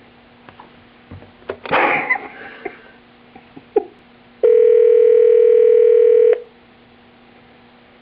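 Telephone line with a few faint clicks and a brief rustle, then a loud steady tone held for about two seconds that cuts off abruptly.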